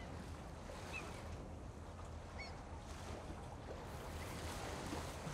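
Quiet riverside outdoor ambience: a steady faint hiss and low rumble of open air by the water, with two faint short chirps about one and two and a half seconds in.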